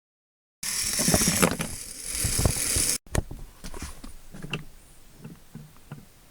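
Loud rushing noise with knocks that starts suddenly and cuts off abruptly about three seconds in, followed by scattered clicks and light rattles of small hard objects being handled.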